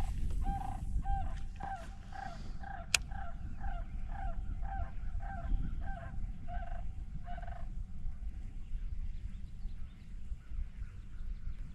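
A bird calling a series of about fourteen hollow, evenly paced notes, roughly two a second, that stops after about seven and a half seconds. A steady low rumble runs underneath, with a single sharp click about three seconds in.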